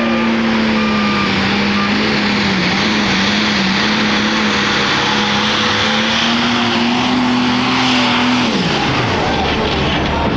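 Super stock pulling tractor's diesel engine running flat out under load while pulling the sled, a loud steady note over a dense roar of tyres and track. About two thirds of the way through the pitch falls away as the engine comes off the throttle at the end of the pull.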